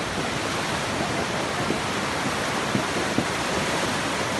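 Swollen, muddy river in flood rushing past: a steady, loud rush of turbulent water.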